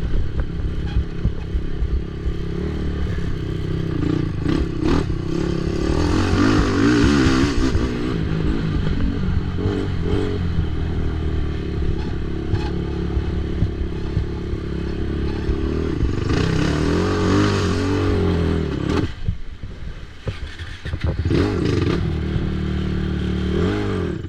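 ATV engine running hard under race throttle, its pitch rising and falling with the revs, with clattering from the machine. Near the end the engine briefly drops off, picks back up, then the sound cuts off suddenly.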